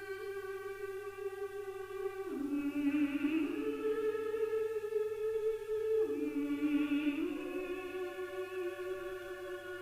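Background music: slow, sustained wordless choir-like tones, the held notes changing pitch every two seconds or so.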